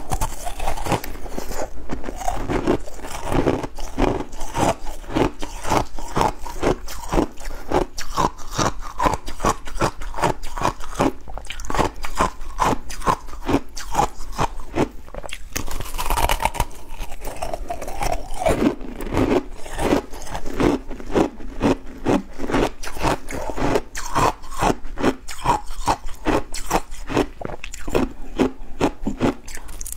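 Frozen passion-fruit ice being chewed and crunched in the mouth, close to the microphones, with rapid crunches several times a second throughout.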